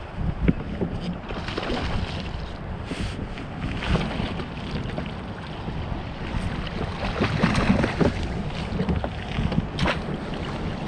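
Wind buffeting the microphone in a steady low rumble, with scattered short knocks of handling on a kayak.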